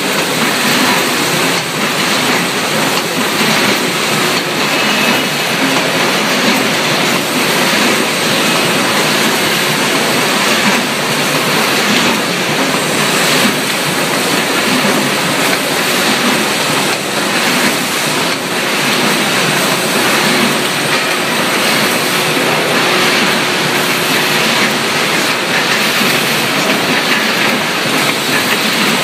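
Metal can production line running: conveyors and machinery carrying metal paint pails make a loud, steady mechanical clatter.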